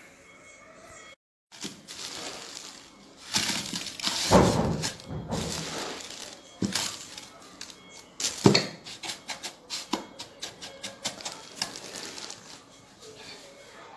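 Coarse salt being handled and spread in a plastic box, with plastic rustling. There is a loud rushing pour about four seconds in, then many quick clicks and clinks as the grains and the container are worked.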